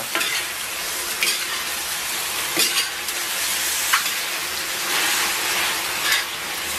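Pork belly cubes sizzling in hot oil and caramelised sugar in a wok as they are stir-fried, with a metal spatula scraping against the wok now and then.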